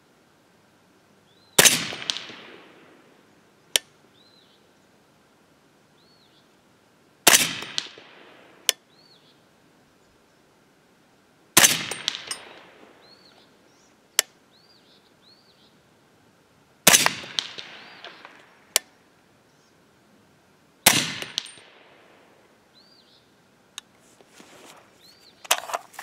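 Five suppressed shots from a 300 Blackout AR-15 firing subsonic 220-grain handloads, about four to five seconds apart, each with a short ringing tail. A fainter sharp click follows most shots a second or two later, and a few lighter knocks come near the end.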